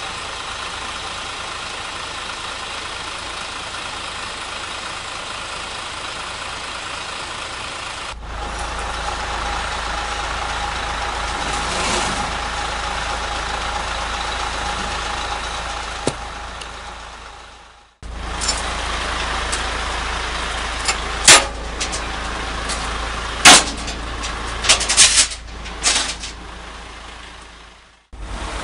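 Heavy diesel engines of earthmoving equipment and trucks running steadily, the sound breaking off twice. In the last part several loud, sharp knocks ring out over the engine noise.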